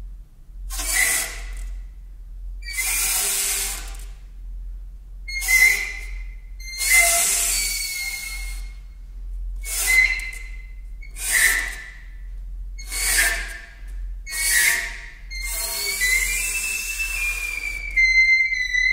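Contemporary music for alto saxophone and percussion played with extended techniques: a series of about nine breathy, hissing gestures, each about a second long and spaced about a second and a half apart, most carrying a thin whistling pitch. Near the end a steadier whistling tone slides in pitch.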